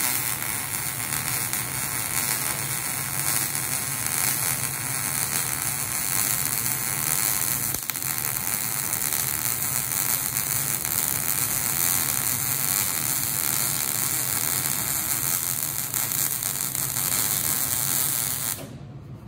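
MIG (gas metal arc) welder's arc running steadily with a dense crackling sizzle and a low hum underneath, as a weaved bead is laid along a butt joint; the arc cuts off abruptly near the end.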